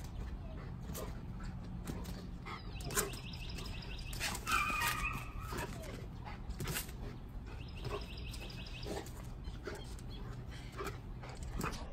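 A dog making a brief whining cry about four and a half seconds in, among scattered light clicks and a low steady hum. There are also two short spells of rapid high-pitched ticking, about three and eight seconds in.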